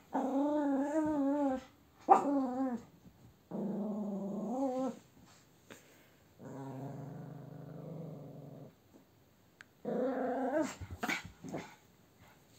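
Griffon dog growling in five drawn-out bouts with a wavering pitch, one lower and rougher than the rest, with a few short sharp sounds near the end.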